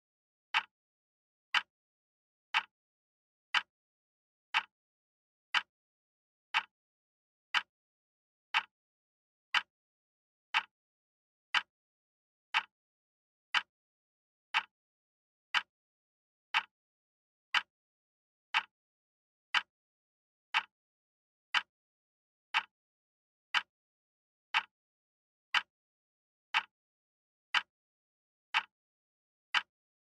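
Quartz wall clock ticking: one short, sharp tick every second, perfectly even, with quiet in between.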